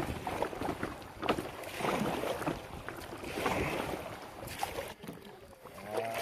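Kayak paddling on a river: irregular paddle strokes splashing, over running water.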